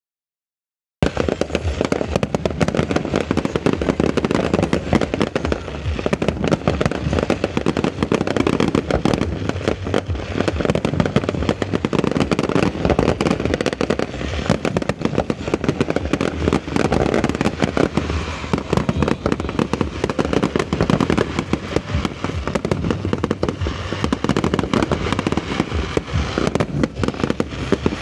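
Fireworks display: a dense, continuous barrage of bangs and crackling bursts, starting abruptly about a second in.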